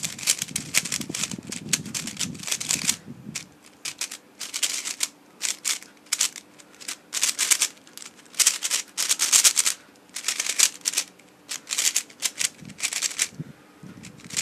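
A brand-new YuXin Kylin 3x3 speed cube being turned by hand for its first turns: bursts of rapid plastic clicking and clacking with short pauses between.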